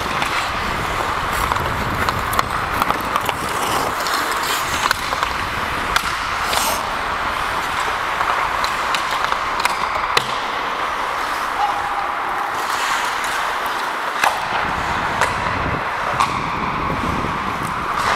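Ice hockey play on the rink: a steady scrape and hiss of skate blades on the ice, broken by frequent sharp clicks and clacks of sticks and puck.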